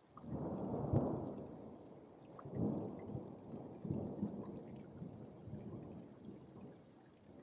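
A roll of thunder over light rain: the rumble breaks in sharply, peaks about a second in, swells twice more, and fades away near the end.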